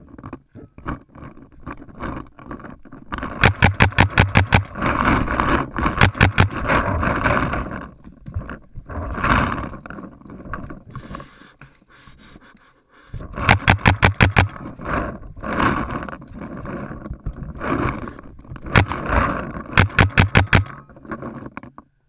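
Paintball marker firing in several rapid strings of about eight shots a second, with rustling handling noise and rumble between the strings.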